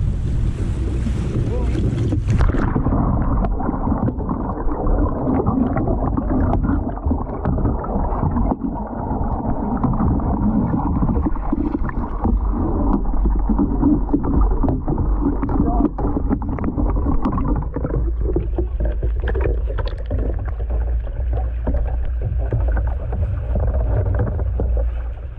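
Rushing river water with wind on the microphone for about two seconds. Then a canoe-mounted camera plunges underwater as the canoe capsizes: the sound turns abruptly dull and muffled, with churning, bubbling water. Near the end it becomes a little clearer as the camera sits at the waterline in the swamped canoe, with water sloshing.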